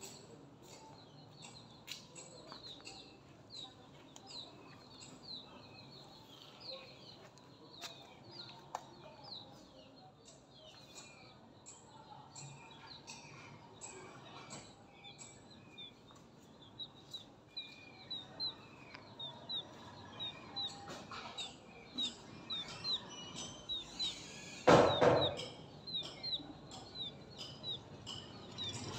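Light Sussex chick peeping: short, high, falling peeps, scattered at first, then a steady run of about two or three a second. A brief loud bump comes near the end.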